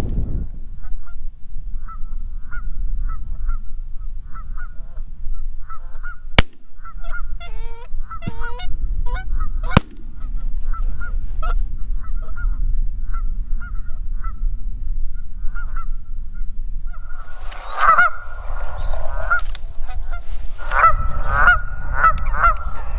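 Geese honking, greylags, in short spaced calls that grow denser and louder in the last quarter, as a flock comes in. Two sharp knocks sound about six and ten seconds in.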